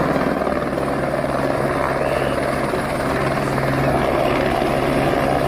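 Helicopter sound effect: a steady, fast rotor chop over a low engine drone.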